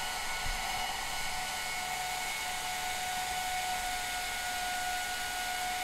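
BBQ Dragon charcoal blower fan running steadily, an airy rush with a faint steady whine, blowing air over lump charcoal to keep the coals red hot.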